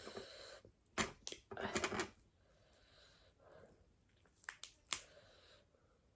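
A person biting and chewing crunchy food, with a few short bursts of crisp crunching and quieter chewing between them.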